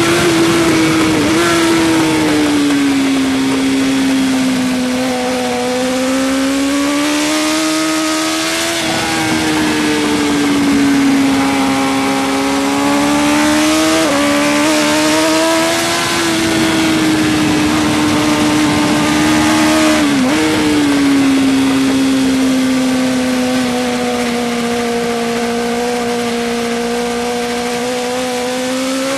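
Suzuki GSX-R1000 K5 superbike's inline-four engine running hard at speed on track, its note rising and falling slowly with the throttle and breaking sharply three times, with a steady rush of wind over the onboard microphone.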